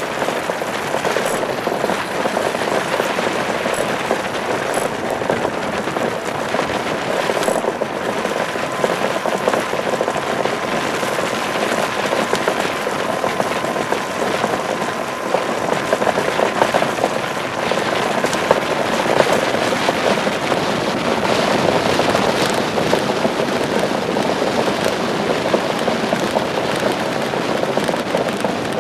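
Iceboat's steel runner blade skating fast over clear ice: a loud, steady, dense crackling hiss.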